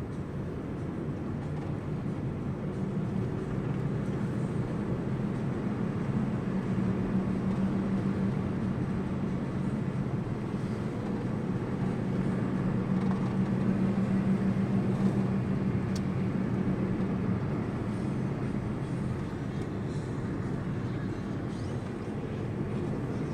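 Steady low drone of a vehicle's engine while moving, slowly growing louder toward the middle and easing off near the end, with a few faint clicks.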